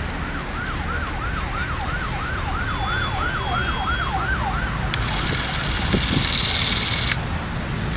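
Emergency-vehicle siren in a fast yelp, its pitch rising and falling about three times a second, stopping about five seconds in. A hissing noise follows for about two seconds, over a steady low rumble.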